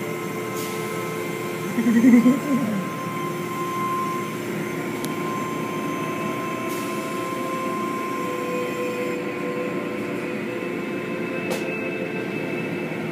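Automatic tunnel car wash running: a steady machine hum with spraying water as hanging cloth curtains sweep over a foam-covered car. A brief louder burst about two seconds in.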